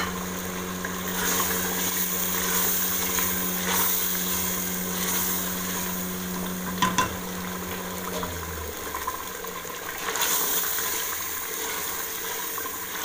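Mutton, tomato paste, oil and spices frying and sizzling steadily in an aluminium pot as a wooden spoon stirs them: the masala is being fried down in oil (bhuna). There are a couple of sharp knocks about seven seconds in, and a steady low hum under it stops a little after.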